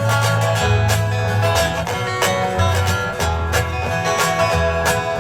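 Instrumental break of a country song: acoustic guitar and banjo picking over a steady bass line, with no singing.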